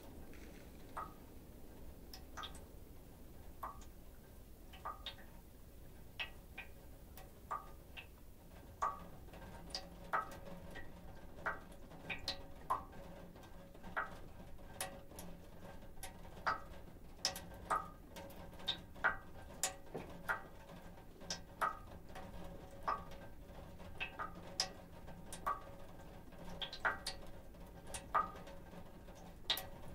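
Meltwater dripping from thawing roof snow, single drops plinking with a short metallic ring, irregular at about one a second. The drops come faster and louder after about nine seconds.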